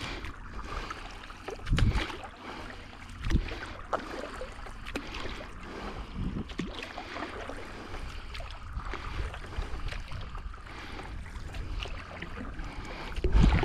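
Water splashing and lapping around a stand-up paddleboard, with wind buffeting the microphone. A few dull low thumps come in the first half.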